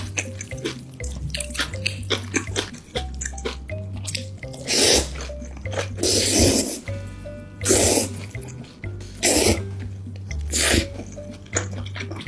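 Background music with a repeating bass line over close-up eating sounds: many small wet clicks of chewing, and loud noisy bursts about every second and a half in the second half.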